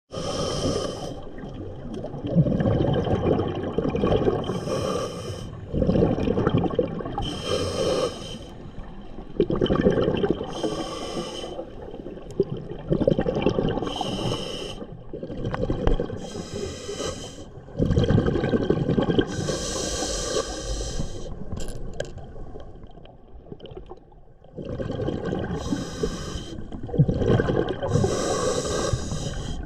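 A diver breathing underwater: a short hissing breath in, then a longer bubbling breath out, repeated every two to three seconds.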